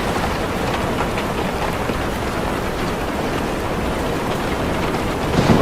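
Steady rain falling on a car, a dense even hiss with scattered single drop hits. Near the end a louder, deeper rumble swells up: thunder from the storm setting in.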